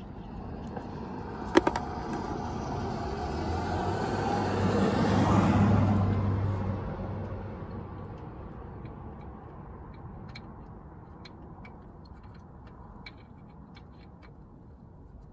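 A car passing by, swelling over about five seconds and then fading away. A sharp click comes about one and a half seconds in, and light ticks follow later.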